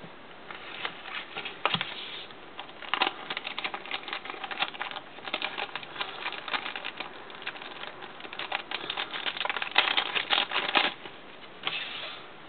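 Clear plastic bag and packaging crinkling and crackling as hands pull thin screen-protector films out of it. The crackling comes in dense, irregular stretches with short pauses and stops shortly before the end.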